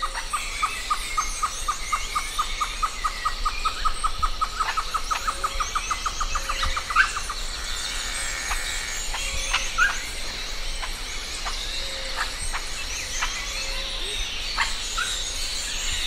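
Tropical wild ambience of birds and insects: one call repeats a short note several times a second, speeding up and ending about seven seconds in, over a dense high chorus of chirps. After it, scattered single chirps follow.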